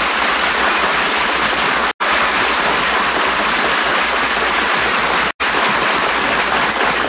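Loud, steady hiss of static noise on an old radio recording. It cuts out abruptly for an instant twice, about two seconds in and again just past five seconds.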